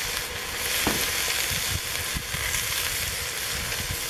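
Mutton pieces sizzling steadily as they brown in a hot cast-iron pot over coals.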